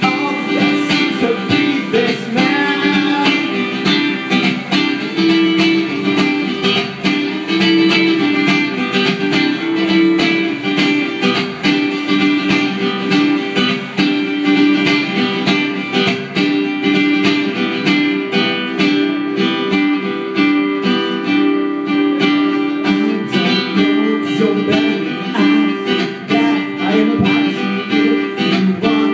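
Classical guitar played with steady plucked chords, with a man singing over it at times.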